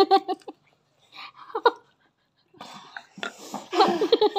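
A woman laughing in short bursts close to the microphone, with breathy vocal sounds between them.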